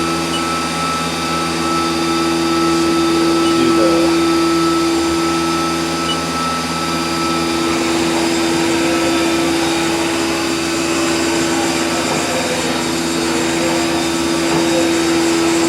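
Haas VF1 vertical machining center's spindle, warmed up and spinning at about 10,000 RPM with almost no load, giving a steady whine over an even hiss.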